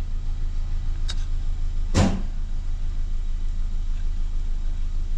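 2014 Kia Forte's 2.0L GDI four-cylinder engine idling with a steady pulsing beat, misfiring on cylinder 2 from a bad ignition coil. A single brief sharp noise about two seconds in is the loudest moment.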